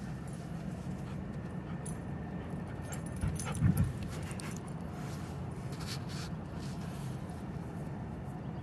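Irish Red and White Setter playing with a large stick, a short burst of dog sounds about three and a half seconds in, over a steady background hiss.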